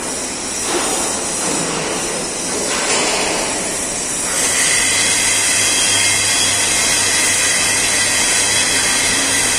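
Submerged arc welding rig running: a steady hiss and rumble. About four and a half seconds in it grows louder, and a low electrical hum with a thin high whine sets in and holds.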